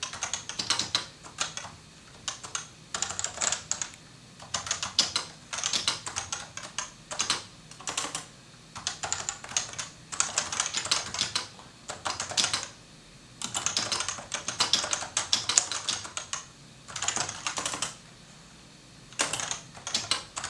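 Typing on a Topre-switch keyboard (Realforce 86U): fast runs of soft, muted keystrokes in bursts of a second or two, broken by short pauses.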